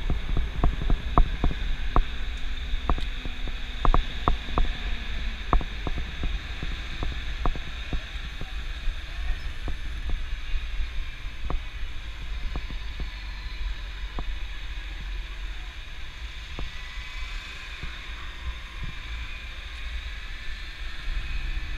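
Wind buffeting the microphone of a helmet-mounted action camera on a moving bicycle, over a steady hiss of road and traffic noise, with scattered sharp clicks through the first several seconds that thin out later.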